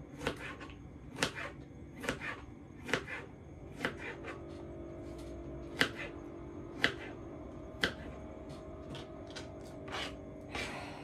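Kitchen knife slicing cucumber on a plastic cutting board: sharp, unevenly spaced clicks of the blade striking the board, about one every second, over a faint steady hum.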